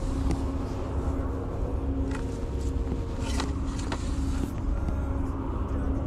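Steady low rumble with a constant droning hum, machine-like, with a few light clicks and knocks about two, three and a half and four seconds in.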